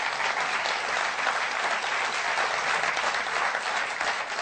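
Large audience applauding steadily, the clapping easing off near the end.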